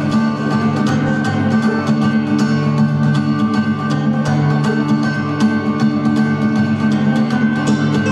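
Recorded instrumental backing music with a steady beat under held chords.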